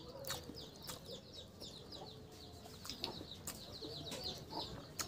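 Small birds chirping in the background, with quick high chirps several times a second, and a few sharp clicks of chewing as a man eats rice and chicken curry with his hand.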